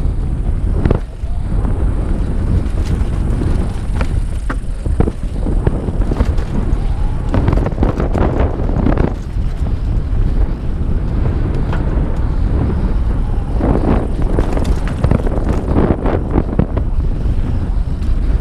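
Santa Cruz Bronson mountain bike ridden fast down a rough dirt trail: steady wind buffeting on the microphone and tyre noise, with frequent rattles and knocks from the bike over bumps.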